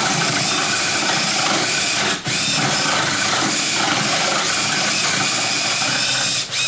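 Cordless drill spinning a counterbore bit, cutting into a wooden deck board around a nail head: a steady whirring with a whine, briefly dipping about two seconds in and again near the end.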